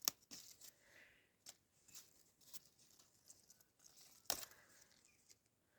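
Faint rustling handling noises with two sharp clicks, one right at the start and a louder one about four seconds in.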